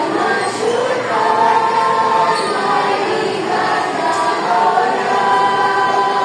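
Choir of young students singing together, holding long, slow notes.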